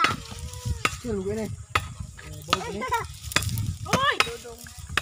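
A long-handled steel blade chopping into whole coconuts, with sharp hits about once a second.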